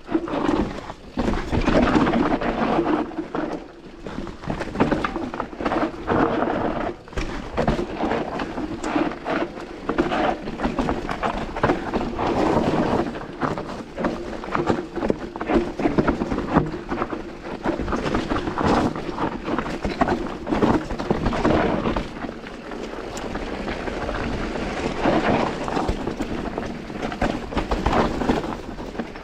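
Mountain bike ridden over a rough trail: wind buffeting the microphone, with a constant clatter of knocks and rattles from the bike and tyres over stones.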